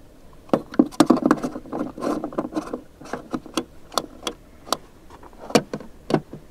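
Irregular series of sharp clicks and knocks with some rustling between them: handling noise at the car's body and fittings.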